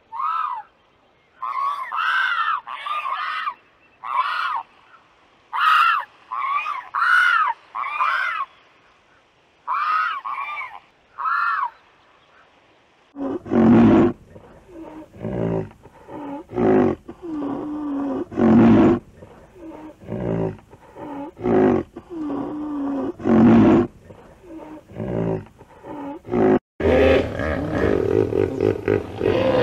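Three animals calling in turn. First a pelican gives about a dozen short, high calls that rise and fall in pitch. Then a rhinoceros gives a run of deeper, louder calls. Near the end a hippopotamus gives a continuous deep call.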